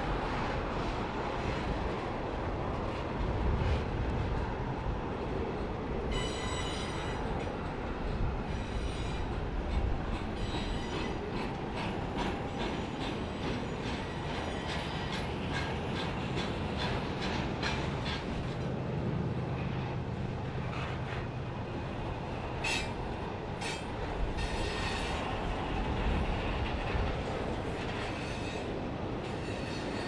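Freight train of double-stack container well cars rolling past: a steady rumble of wheels on rail, with repeated high-pitched wheel squeal and sharp clicking coming in from about six seconds in as the cars round the curve.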